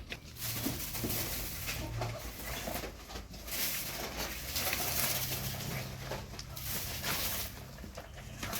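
Animal calls over a steady hiss.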